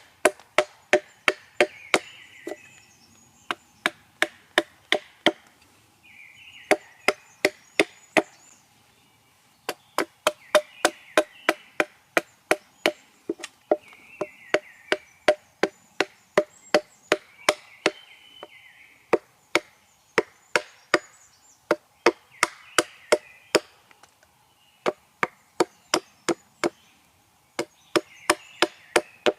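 Hatchet chopping a small piece of wild cherry wood while hewing out a spoon blank, in runs of quick, even strokes about three a second with short pauses between runs. Birds sing in the background.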